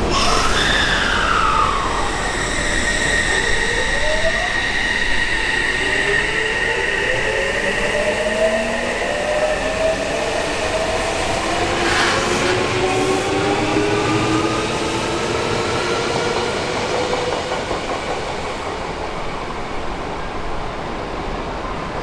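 Odakyu 3000 series electric train's Mitsubishi IGBT-VVVF inverter and open four-pole induction motors whining as it accelerates. A short falling whine at the start gives way to a steady high tone, then several tones rising together in pitch, with a brief click midway.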